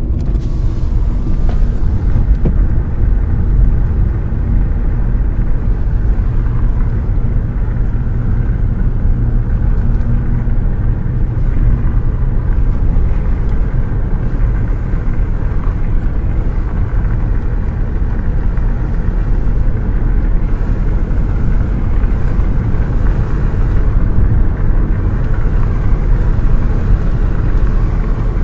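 A car running with a steady low rumble, its pitch holding even with no revving.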